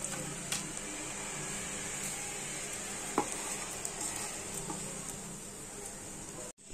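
Soft, steady sizzle of ghee-cooked pulao rice in a non-stick pan over a gas flame, with a few faint clicks, the clearest about three seconds in. The sound cuts off abruptly near the end.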